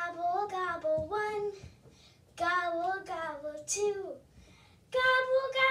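A young girl singing unaccompanied, in three short phrases with brief pauses between them.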